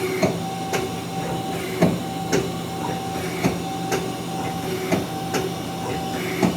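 The 12-position turret of a Mazak Quick Turn Nexus 250MS CNC lathe indexing from station to station, with a sharp clunk about every half second over the machine's steady hum and whine.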